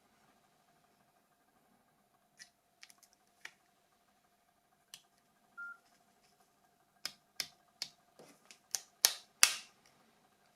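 Scattered sharp plastic clicks and snaps from handling and working on a Nokia 7230 phone, with a short electronic beep about five and a half seconds in. The clicks come thicker and louder in the last few seconds.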